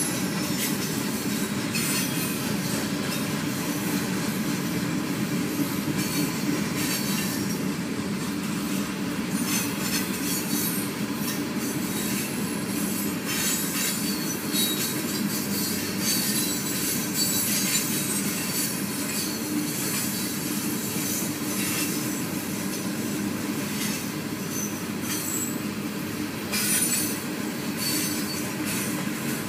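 Florida East Coast Railway freight train of open-top cars rolling steadily past a grade crossing: a continuous rumble and clatter of steel wheels on the rails, with now and then a high squeal.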